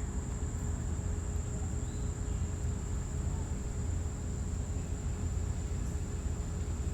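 Outdoor ambience: a steady, high-pitched insect drone over a constant low rumble.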